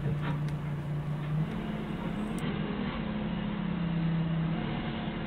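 Forklift engine running as the forklift drives slowly, heard from the driver's seat: a steady hum whose pitch steps up about a second and a half in, dips a little, and rises again near the end as the engine speed changes.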